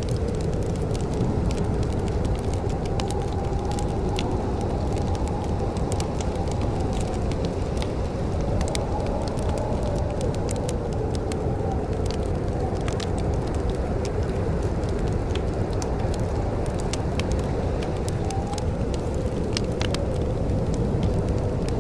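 Wood fire crackling in a fireplace, with scattered sharp pops and snaps over a steady low rumble, and a faint wavering whistle running through it.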